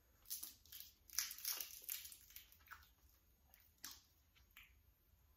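Grilled catfish being torn apart by hand, its charred skin and flesh giving a run of short crisp crackles and soft tearing that die down after about four seconds.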